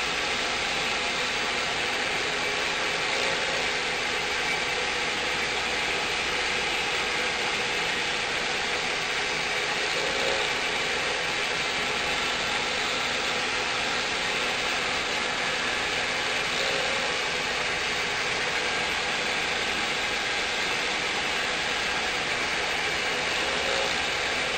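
CNC router spindle running steadily while milling a glider canopy mold: an even, noisy machine sound with faint steady tones running through it.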